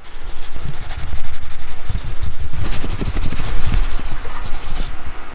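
Wind and road noise buffeting a moving camera's microphone: a loud, rough rushing with low rumbling thumps.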